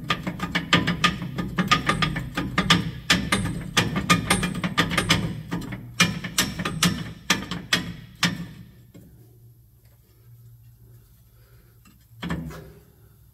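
Rapid metallic clicking and rattling as a steel U-bolt and bracket for a Safe-T-Plus steering stabilizer are wiggled and worked into place on a motorhome's front axle, stopping about eight seconds in. A single knock near the end.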